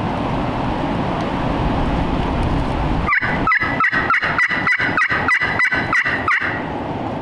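Wind rumbling on the microphone, then, about three seconds in, a wooden turkey box call worked in a fast, even run of about a dozen sharp yelping notes, roughly four a second.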